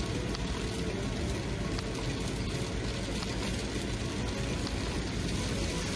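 Inside a car driving through heavy rain: steady engine and tyre rumble on the wet road, with rain hitting the windscreen and roof.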